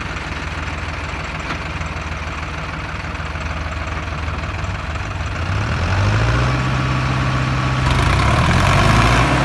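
Diesel tractor engine idling, then revving up about halfway through and holding at higher revs as it works in deep mud.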